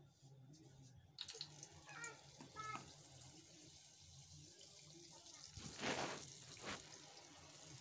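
Hot oil sizzling as balls of bofrot dough are dropped into it for deep-frying. The sizzle swells about six seconds in, as a dough ball goes into the oil.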